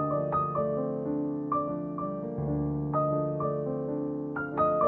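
Soft background piano music: a slow melody of single struck notes ringing over held lower chords.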